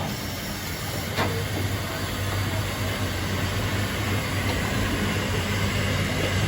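Narrow-gauge heritage railway train: a steady running noise with a low hum that grows a little louder, and a single sharp click about a second in.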